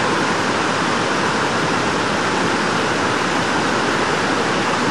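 Fast-flowing creek water rushing steadily.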